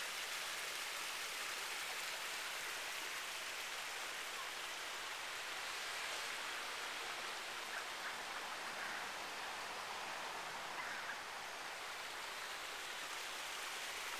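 Small woodland creek running: a steady, even rush of water.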